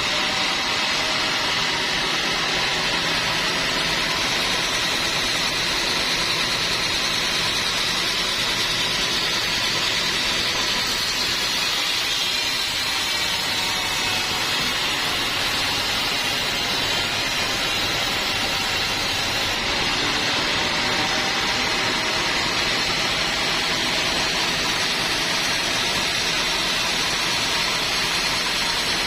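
Sawmill band saw running steadily: a constant loud hiss and whine that holds at an even level throughout.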